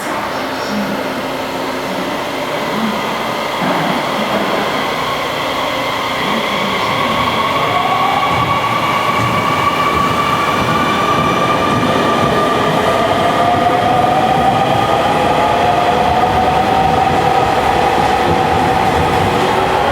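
Electric commuter train pulling away and gathering speed: its traction motor whine rises slowly in pitch from about six seconds in, over running noise that grows steadily louder.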